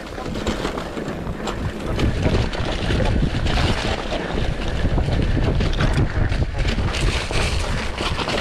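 Wind buffeting a GoPro Hero 8's microphone during a fast mountain-bike descent on a dry dirt trail, over tyre rumble and the rattle and knock of the bike. It grows louder about two seconds in as speed builds.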